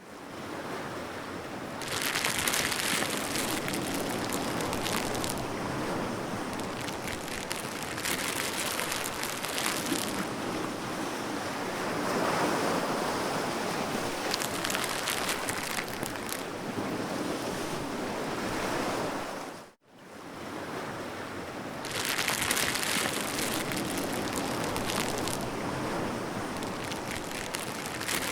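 Water washing and splashing in uneven surges, a steady noisy wash that swells louder every few seconds. It cuts out abruptly about two-thirds of the way through, then starts again.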